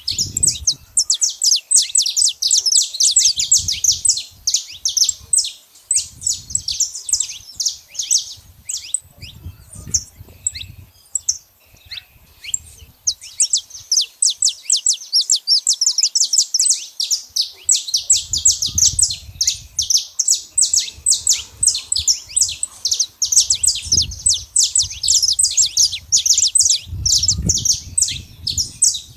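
Saffron finches singing in rapid, dense runs of high chirps and trills, which thin out for a few seconds about nine seconds in and then pick up again.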